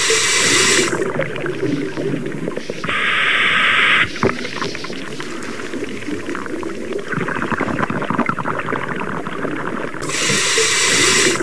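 Bursts of static hiss at the start, about three seconds in and near the end, over a continuous crackly, murmuring ambient bed of edited sound effects.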